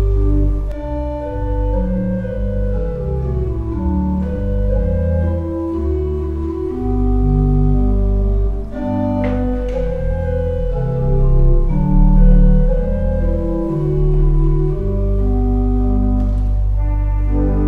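Slow organ music: held chords and a melody of long notes that change every second or so.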